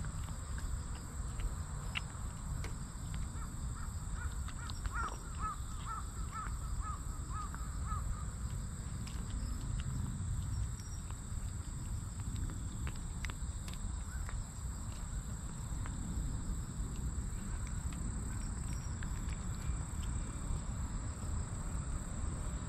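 A cat eating wet food from a stainless steel tray, with small wet chewing and licking clicks. From about three to eight seconds in, a bird calls a quick run of about a dozen short notes, over a steady low outdoor rumble.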